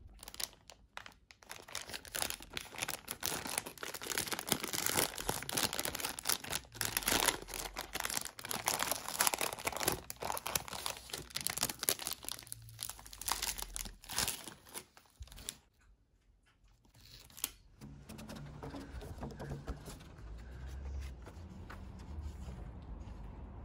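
A thin plastic wrapper being torn open and crinkled by hands: a dense, crackling rustle for about fifteen seconds that stops suddenly.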